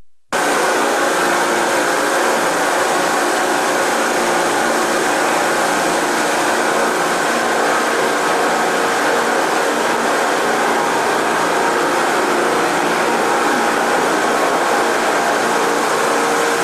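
A loud, steady rushing noise with a faint hum in it, like a fan or running machinery, starting abruptly right at the beginning.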